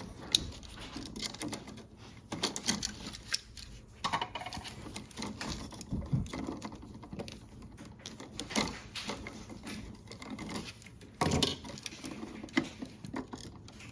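Irregular small metallic clicks and taps from pliers and copper wire being handled while the wire ends are bent into hooks for the switch's terminal screws, with a louder knock about eleven seconds in.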